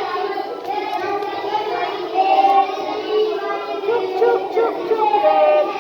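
Young children's voices singing a Hindi train rhyme, with long held, wavering high notes.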